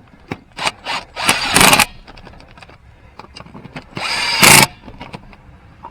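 Cordless power tool run in two short bursts about two and a half seconds apart, a few light clicks before the first, spinning the Jeep wheel's lug nuts on to snug them.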